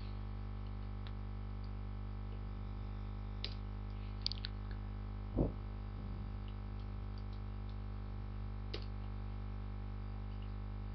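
Steady low electrical hum from the recording setup, with a few faint computer key clicks while coordinates are typed in. There is a soft low thump about five and a half seconds in.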